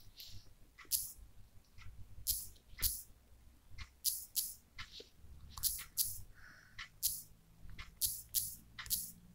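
Short, sharp taps at an uneven pace, about one or two a second, from typing on a phone's touchscreen keyboard.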